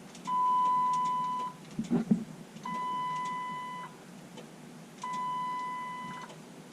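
Electronic warning chime from the van's Chrysler LX instrument cluster beeping three times. Each beep is a steady tone about a second long, repeating every couple of seconds, with a short click or two between the first and second beep. It sounds while the key is held in the start position and the starter fails to crank.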